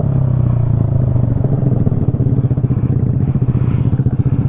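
Vespa scooter engine running at a steady speed, with a fast, even pulsing beat.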